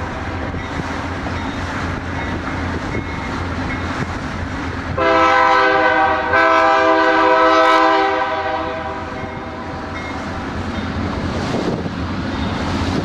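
Amtrak locomotive's horn sounding two blasts back to back about five seconds in, over the steady low rumble of the train running on the rails.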